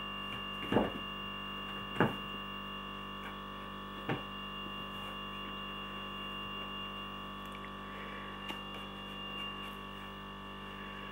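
Steady electrical hum with a few fixed tones, broken by three short thumps about one, two and four seconds in.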